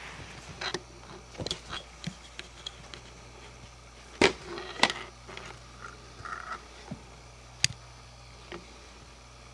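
Irregular clicks, taps and scratches of a kitten's claws and teeth batting at a camcorder and its lens cap, heard right at the camera body. The loudest are two sharp knocks about four and five seconds in.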